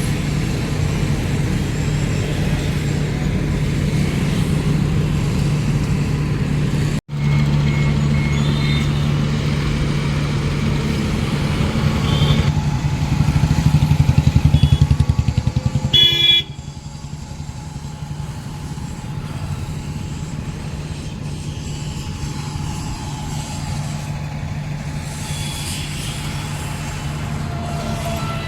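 Heavy engine running with a steady low drone, with a short horn toot just past halfway, after which the engine sound drops quieter.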